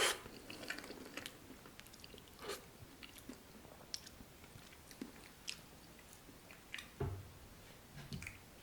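Close-up mouth sounds of a person chewing spicy carbonara ramen noodles with chewy octopus: wet clicks and smacks at irregular intervals. A louder wet burst comes at the very start, and a soft low thump about seven seconds in.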